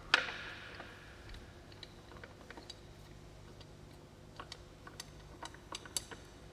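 Scattered light clicks and taps of a ribbed drive belt and metal pulleys being handled on the front of a V8 engine while the belt is routed over the tensioner pulley. There is one sharp metallic clank with a brief ring just after the start and another sharper click near the end, over a faint steady hum.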